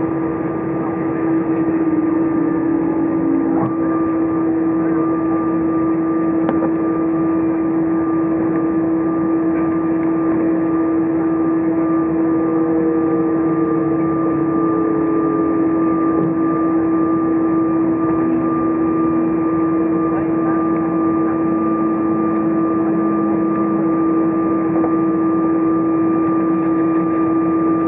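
Steady cabin noise inside an Airbus A320 taxiing after landing, its jet engines at idle: one constant hum stands out over an even rush of noise, and faint sliding tones pass through about halfway.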